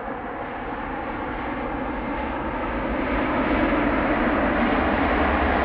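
Airbus A350's Rolls-Royce Trent XWB turbofan engines on landing: a rushing jet noise with a faint whine that grows louder over the first three seconds, then holds as the airliner rolls past close by.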